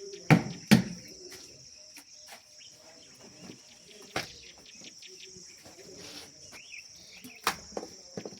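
Sharp knocks, two loud ones close together near the start and single ones around the middle and near the end, over a steady high-pitched insect drone like crickets.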